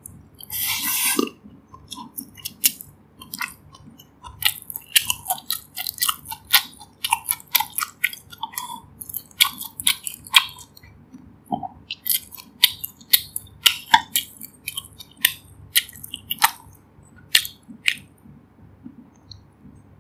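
Close-miked mouth sounds of someone eating fried rice: a short loud rushing noise as the spoonful goes into the mouth, then steady chewing full of quick wet clicks and smacks. The chewing stops about two seconds before the end.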